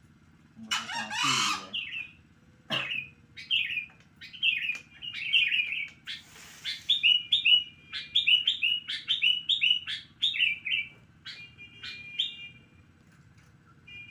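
Caged birds calling: a loud, harsh call about a second in, then a long run of quick, falling chirps repeated several times a second, ending in a few held whistle-like notes.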